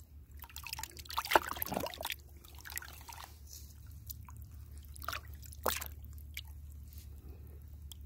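Water splashing and dripping in a plastic tub as a hand moves live catfish about, with sharper splashes about a second in and again about five seconds in.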